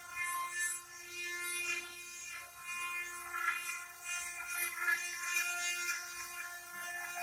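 CNC stone-engraving machine running: a steady whine of several held tones from the spindle, with an uneven gritty hiss from the bit cutting stone.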